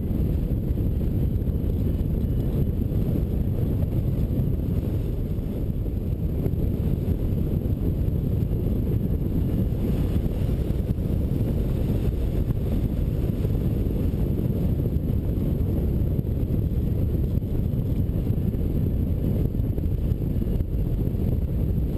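Steady wind rush from the airflow over a hang glider in flight, buffeting the microphone of the wing-mounted camera as a low, even rumble.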